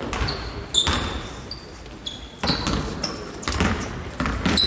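A basketball bouncing on a hardwood gym floor, several separate thuds, with short high-pitched sneaker squeaks as players cut and stop.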